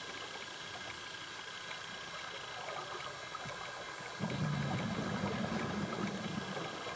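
Scuba diver exhaling through an open-circuit regulator underwater. About four seconds in, the exhaust bubbles make a loud, low bubbling noise for about two seconds over a steady underwater hiss.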